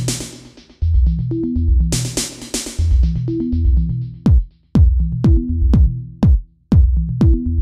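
Electronic dance music with a drum-machine beat and a stepping bass line. From about four seconds in, punchy kicks that drop sharply in pitch come about twice a second.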